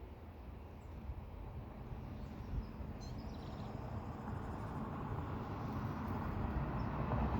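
Low rumbling outdoor noise, steadily growing louder, with a few faint, brief high bird chirps about three seconds in.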